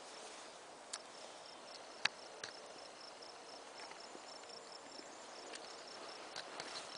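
Faint insect chirping, a steady, evenly pulsed high trill, with a few soft clicks about one and two seconds in.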